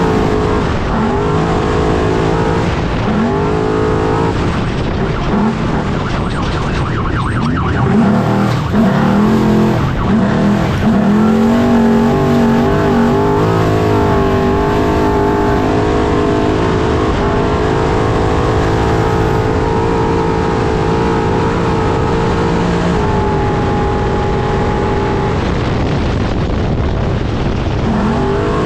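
Trophy truck's engine running hard at race pace, its note holding for stretches and then dipping and climbing as engine speed changes, over a constant bed of road and chassis noise from driving on dirt. Heard from inside the cab.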